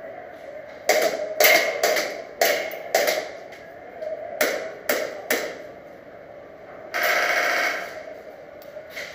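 Airsoft guns firing: about eight sharp single cracks at irregular intervals over the first five seconds, then a burst of rapid fire lasting about a second, about seven seconds in.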